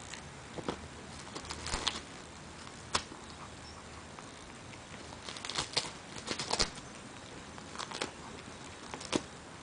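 A dachshund chewing and tearing at a dried pollock fish chew: irregular dry crunches and crackles that come in clusters, with short quieter gaps between them.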